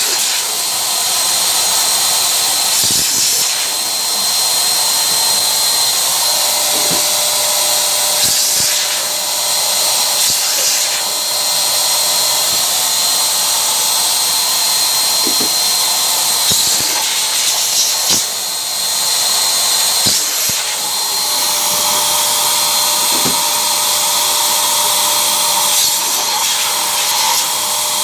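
Electric balloon pump running continuously, a steady blowing whine as latex balloons are inflated on its nozzle, with a few brief clicks along the way.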